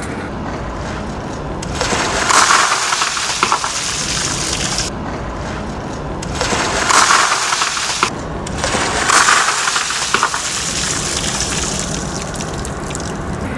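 Buckets of ice water pouring and splashing over a person, the gush swelling louder several times.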